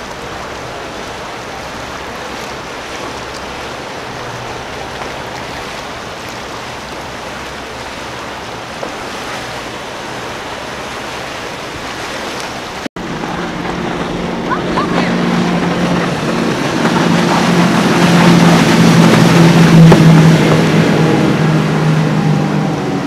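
Wash of water and wind at first. About halfway through, a center-console motorboat's engines take over, growing louder as it runs close by through rough water and wake, loudest about two-thirds of the way in.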